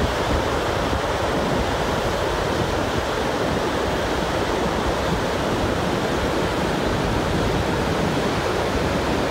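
Heavy water pouring over a concrete dam's crest and churning in the river below: a steady, loud rush.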